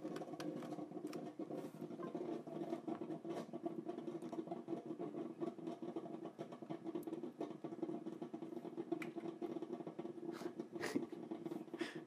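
Scattered light clicks at irregular intervals from a computer being worked by hand, over a steady low hum.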